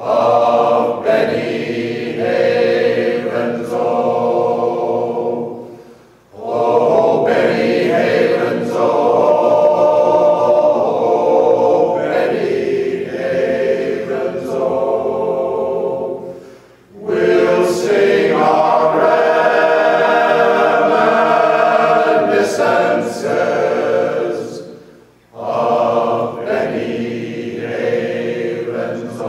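Mostly male glee club choir singing together, in long phrases broken by three brief pauses.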